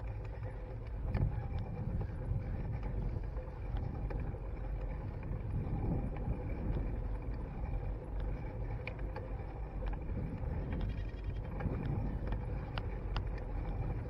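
Mountain bike rolling along a paved trail, heard through a handlebar-mounted camera: a steady low rumble of tyre and wind noise that swells and eases, with scattered light ticks and rattles.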